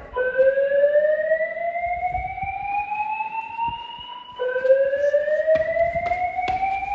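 Fire alarm voice-evacuation speaker sounding its slow whoop evacuation tone: a tone rising steadily from low to high over about four seconds, then starting over about four seconds in. A few short knocks come in the second half.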